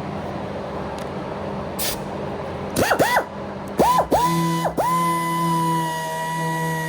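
A steady rushing noise with a low hum, then music comes in about three seconds in: a few quick swooping tones, then steady held electronic notes.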